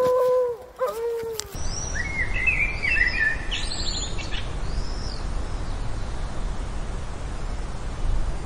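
Small birds chirping in short quick phrases over a steady low rumble of outdoor noise. It begins with a drawn-out, slightly falling whine that cuts off abruptly about a second and a half in.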